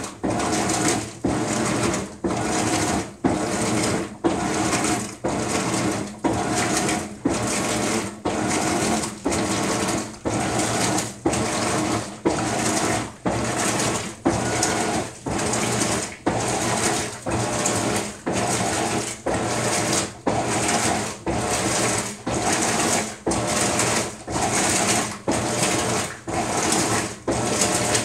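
Maytag MVWX655DW1 top-load washer agitating a load of dish towels on its Deep Water Wash cycle: the drive churns the water and towels in strokes of about one a second, each ending in a short pause as it reverses.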